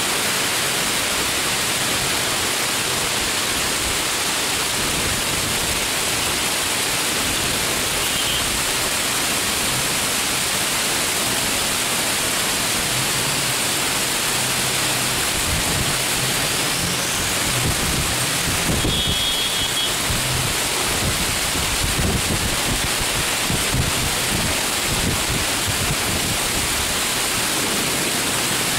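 Heavy downpour: the steady, dense hiss of rain pouring down and splashing on the ground, with low rumbling swelling in under it in the second half.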